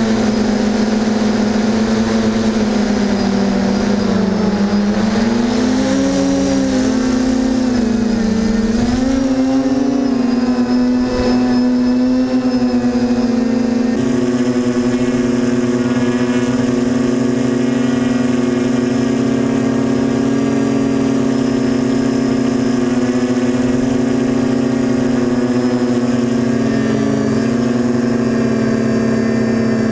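Electric motors and propellers of an FPV model aircraft heard from its onboard camera: a loud, steady pitched whine. The pitch wavers up and down with the throttle in the first half, then holds steady after an abrupt change about 14 seconds in.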